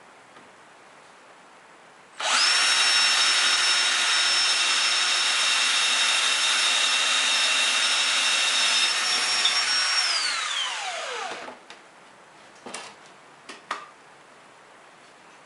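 Ridgid cordless drill, converted to run on 18 volts from a mains switching power supply, drilling into a wooden board: the motor starts about two seconds in with a steady high whine, runs for about eight seconds, then winds down with falling pitch. A few short knocks follow as the drill is set down on the wooden table.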